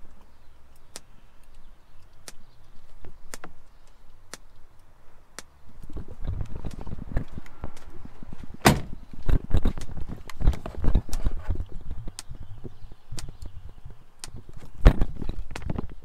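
Polarity-test pulses clicking through car-audio speakers, about one click a second, played from a phase-check disc. Irregular knocks and thumps join in, with two loud sharp hits, one a little past the middle and one near the end.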